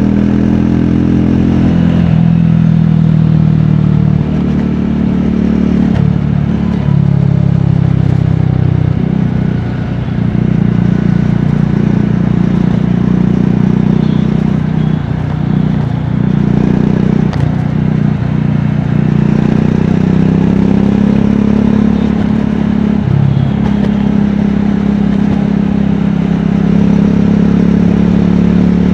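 Triumph Scrambler 400X's 398 cc single-cylinder engine and exhaust running while riding. The engine note rises and falls several times with throttle and gear changes, with a short dip in loudness about ten seconds in.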